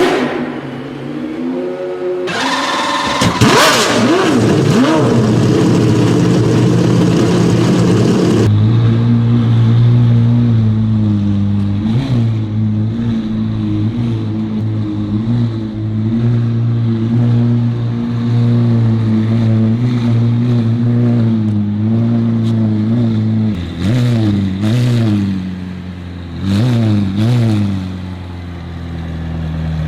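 High-performance car engine revving hard for several seconds, then settling into a steady idle, with three or four quick throttle blips near the end.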